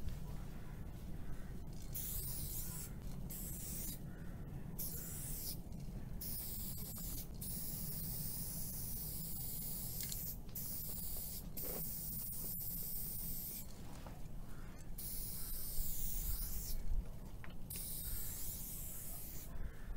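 Aerosol spray-paint cans hissing in repeated bursts of a second or two, starting and stopping as lines of paint are laid on a wall, over a low steady background rumble.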